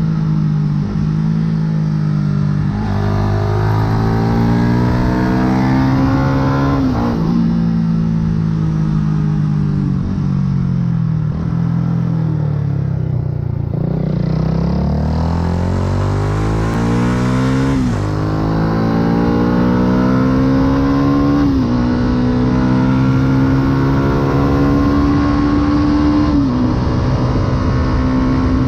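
A 2008 Yamaha YZF-R125's 125 cc single-cylinder four-stroke engine, breathing through an aftermarket full exhaust, accelerating under way. The revs climb and dip at each upshift in the first part, fall away as the bike slows about halfway through, then pull up again through three more upshifts before holding steady near the end.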